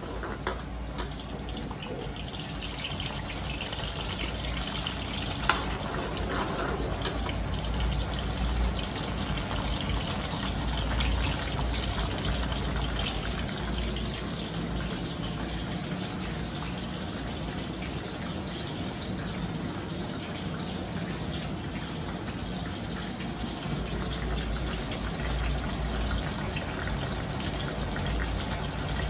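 Sliced onions sizzling steadily in hot ghee in a karahi, with a single sharp click about five seconds in.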